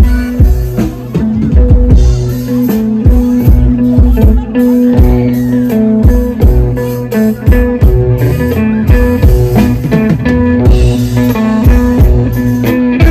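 Band music: guitar and drum kit playing a steady beat, with held notes over regular drum strikes.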